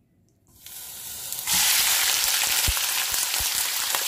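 Chicken hearts and gizzards frying in very hot oil in a nonstick pan: after a faint rising hiss, a loud, steady sizzle starts suddenly about a second and a half in, with a few soft low knocks.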